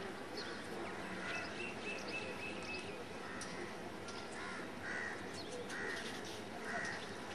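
Crows cawing outdoors, about five separate caws in the second half, over a steady background hiss. A quick run of short, high, even notes comes about a second and a half in.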